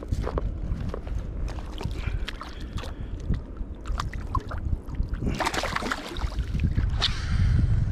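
Water splashing beside a kayak as a fish on a rope stringer is lowered over the side, the loudest splash about five and a half seconds in, after a run of small clicks as the stringer is handled. Low wind rumble on the microphone throughout.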